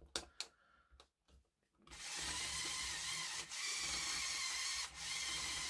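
Electric motor of a Mould King Tatra T813 8x8 Technic brick model driving the front-axle steering, the plastic gears crunching and creaking at the front axle; elsewhere the drivetrain runs smoothly. A few light clicks, then the motor runs steadily from about two seconds in, cutting out briefly twice.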